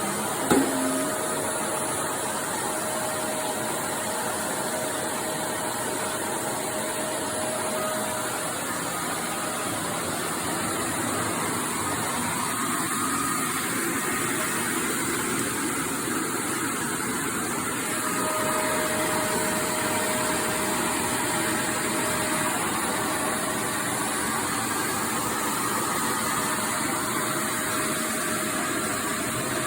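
Vacuum cleaner running steadily, an even whirring rush of motor and airflow, with one short knock about half a second in.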